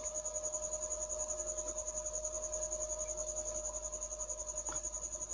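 Cricket chirping: a steady, rapidly pulsing high trill over a faint low hum. Near the end there is a single snip as the cutters cut through the insulating tape.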